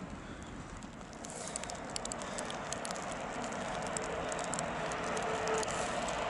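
Train running on the station tracks, its rushing running noise growing steadily louder, with a steady hum coming in about halfway through and scattered sharp crackling clicks throughout.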